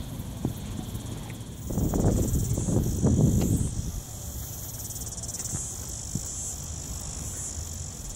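Insects chirring steadily at a high pitch, starting about one and a half seconds in. A louder low rumble runs for about two seconds, from about two seconds in.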